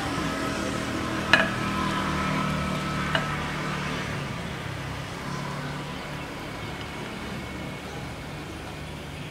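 Two sharp clicks, about a second and three seconds in, as chunks of toon (giant elephant-ear stalk) are dropped by hand into a glass pot of simmering curry. Soft background music with held notes plays underneath.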